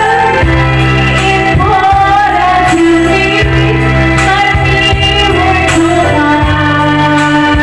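A woman singing a slow ballad into a microphone over a karaoke-style backing track of sustained keyboard or organ chords.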